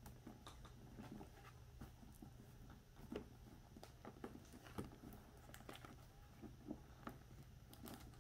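Near silence: room tone with a steady low hum and scattered faint ticks and taps.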